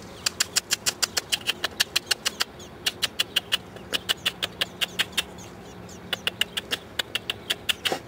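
Nestlings in the nest giving rapid, evenly spaced short begging cheeps, several a second, with two brief pauses.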